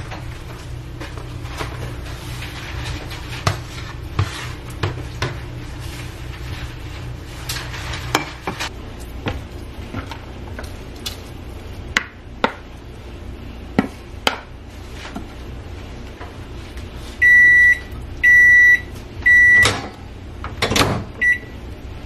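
Scattered knocks and clatter of ingredients being tipped into a ceramic pot and a wooden spoon against it. Then a kitchen appliance beeps three times, each beep about half a second long and all at the same high pitch, and gives one more short beep near the end.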